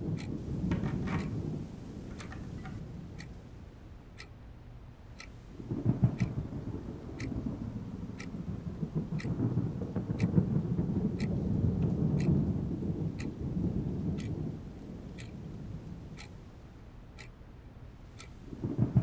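Steady ticking, about two ticks a second, over a low rumble that swells about six seconds in and dies away before rising again near the end.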